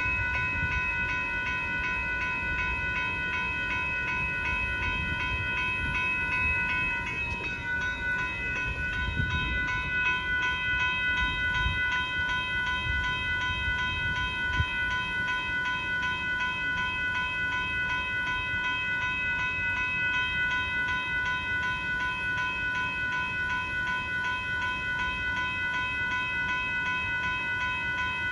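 Railroad grade-crossing bell ringing fast and steadily, over the low rumble of a Union Pacific limestone freight train rolling through the crossing. There is a single sharp click about halfway through.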